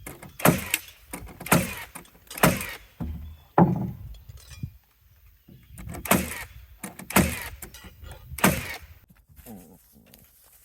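Heavy knocks on wooden deck boards as they are laid and set in place, about one a second: four in a row, a pause, then three more.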